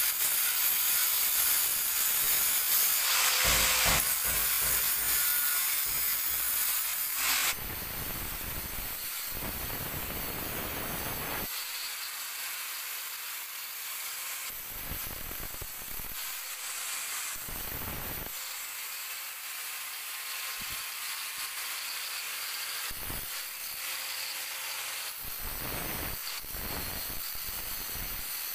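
Electric angle grinder with a flexible abrasive disc running against the edge of a granite countertop, sanding the bevel smooth: a steady high whine and hiss. It is louder for the first seven seconds or so, then a little quieter.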